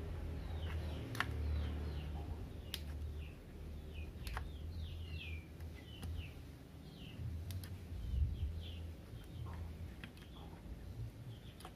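Small bird chirping in the background, many short falling chirps a few times a second, along with a few sharp clicks of pliers working at a hair straightener's hinge, over a steady low hum.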